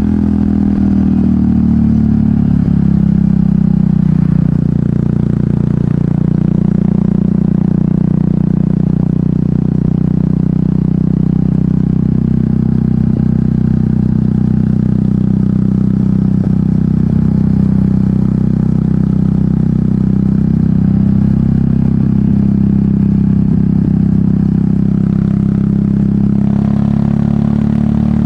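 Royal Enfield Meteor 350's single-cylinder engine, fitted with an aftermarket exhaust, running under way at steady cruising revs. Its note rises and falls gently with the throttle.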